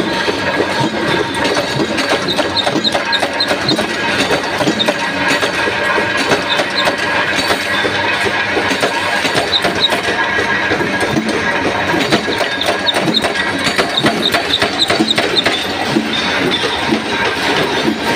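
Flywheel-driven mechanical punch press running, with a steady, dense clatter of strokes and metal knocks as it punches rings out of steel strip.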